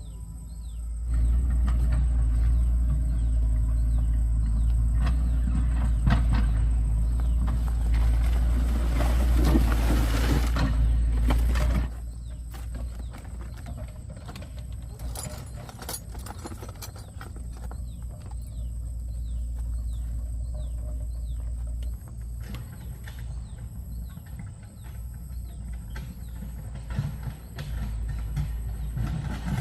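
A motor or engine running steadily with a low hum, loud for the first eleven seconds or so and then dropping to a quieter run, with birds chirping.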